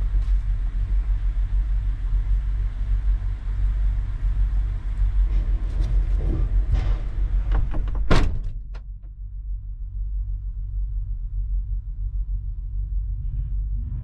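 Steady low rumble of idling diesel engines and refrigeration units coming into a Scania truck cab through its open driver's door, with a few knocks. About eight seconds in the cab door slams shut, and the sound drops to a muffled low hum.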